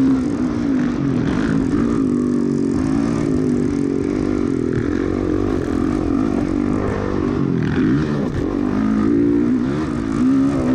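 Motocross dirt bike engine heard from on the bike under race throttle, its pitch climbing and dropping again and again as the rider works the throttle and gears, with wind rush.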